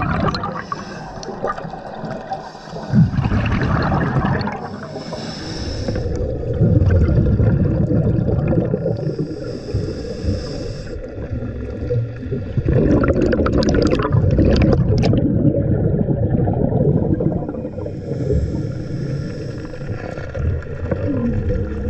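Underwater water noise on a diver's camera: a steady low rush of water with irregular bubbling and gurgling swells as the diver swims and rises toward the surface.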